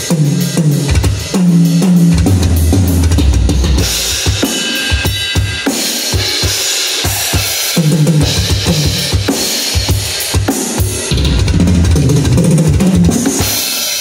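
A hybrid drum kit being played: a Pearl Mimic Pro electronic drum module triggered from the drum pads, with acoustic cymbals. Busy fusion-style playing of kick and snare, with rolling tom fills that step down in pitch at the start and again through the second half, and cymbal crashes and wash in the middle and near the end.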